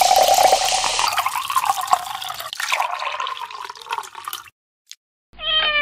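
Fizzy soda water poured from a glass bottle into a glass over ice, hissing strongly at first, then a thinner stream of a second drink trickling in until the pouring stops about four and a half seconds in. A short pitched tone sliding slightly down comes at the very end.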